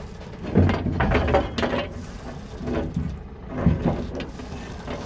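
Sailboat's propeller drive running in gear and knocking and rattling irregularly, louder hits about half a second in and near the end. It is the sign of something caught on the propeller, which the owner takes for seaweed.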